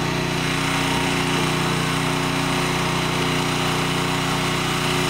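An engine running steadily, giving a constant unchanging drone.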